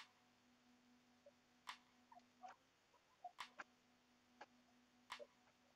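Quiet handling of a plastic courier mailer being cut open with scissors and peeled: four sharp clicks about a second and a half apart, with soft crinkles between them.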